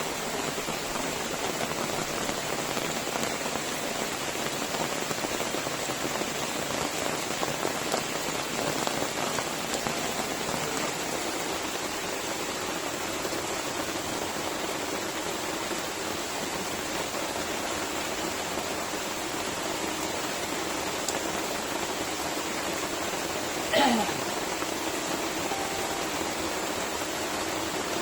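Steady rain falling, an even hiss that does not let up. Near the end there is one brief sound that falls in pitch.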